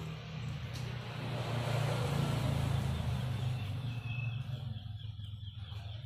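A motor vehicle engine running with a low steady hum that swells and then fades, as of a vehicle passing by.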